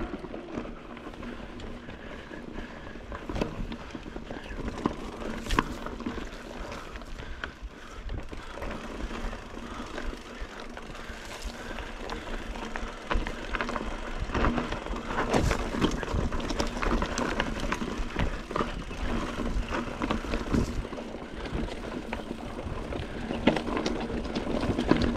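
Rockrider XC900S mountain bike ridden over rough, rocky ground: a steady rumble of rolling noise, broken by repeated sharp knocks and rattles as the bike hits bumps.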